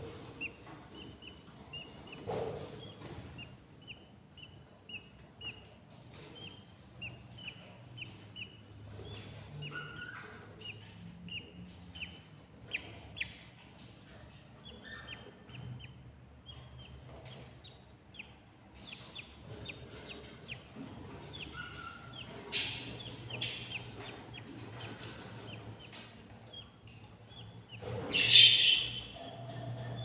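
Budgerigars chirping: a run of short, high peeps, one or two a second, with a louder call near the end.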